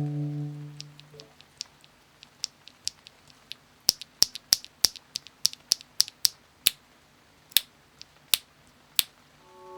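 Small sharp plastic clicks from a mechanical keyboard being built or handled: about twenty separate clicks at uneven intervals, coming thickest in the middle.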